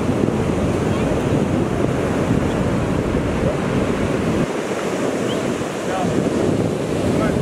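Ocean surf breaking and washing up a sand beach, with strong wind buffeting the camera microphone in a deep rumble. The wind rumble eases briefly a little past the middle, then returns.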